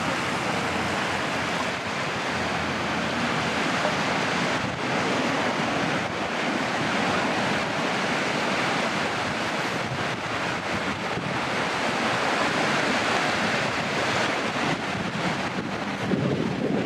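Surf washing steadily onto a sandy beach, with wind on the microphone.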